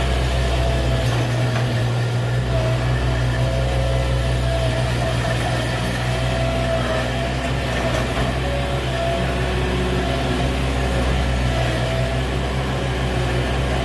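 A farm machine's engine running steadily at constant speed: a low drone with a thin whine over it.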